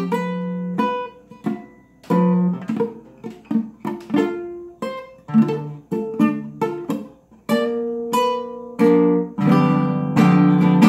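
Nylon-string classical guitar played solo, an instrumental break: single notes and chords picked one after another, each ringing and fading, with fuller, louder strummed chords near the end.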